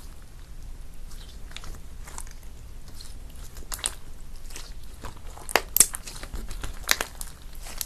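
Slime being squished and poked by hand, giving irregular sticky crackles and clicks. The crackles come loudest a little past halfway through and again about a second before the end.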